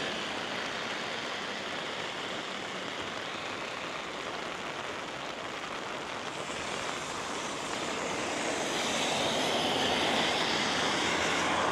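Steady rain hiss that grows gradually louder from about halfway through.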